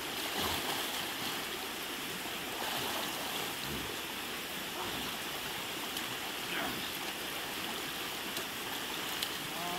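Shallow rocky creek running steadily, its water rushing over a riffle of stones.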